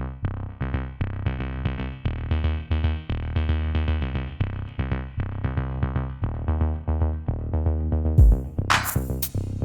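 Electronic background music: synthesizer notes and bass over a steady drum-machine beat. About eight seconds in, a deep bass hit, then loud crashing cymbal-like hits.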